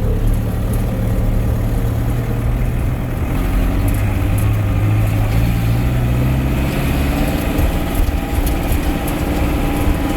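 Case 885XL tractor's diesel engine running steadily as the tractor drives and turns, its note rising slightly about three and a half seconds in.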